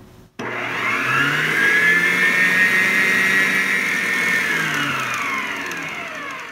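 Electric stand mixer motor starting about half a second in, its whine rising in pitch as it speeds up, running steady, then falling as it slows near the end. The beater is working glue slime that the borax activator is thickening.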